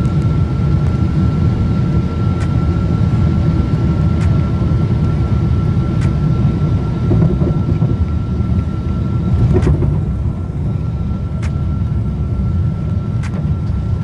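Boeing 777 airliner cabin noise just after landing: a loud, steady rumble and rush of the aircraft rolling on the runway, with a thin, steady high whine and a few faint clicks.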